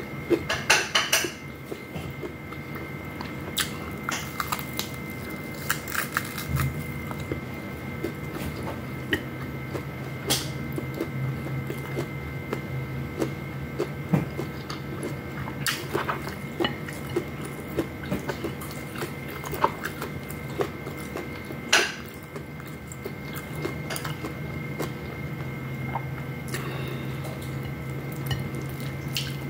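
Eating sounds: chewing, and scattered clicks and taps of fingers picking rice and fried pork off a plate, with a louder clatter about a second in. A steady low hum runs underneath.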